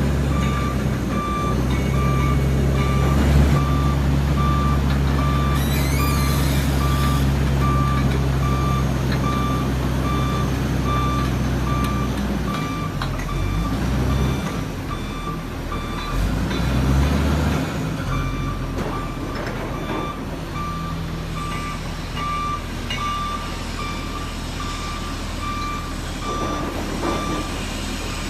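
Rotary drilling rig's diesel engine running while its warning alarm beeps steadily. The engine note shifts up and down about halfway through.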